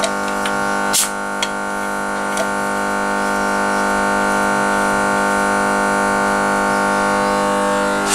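Starter motor cranking the Chevrolet Cruze's 1.6-litre 16-valve four-cylinder engine for a compression test on the fourth cylinder: a steady whine with a couple of clicks about a second in, winding down as the cranking stops at the end.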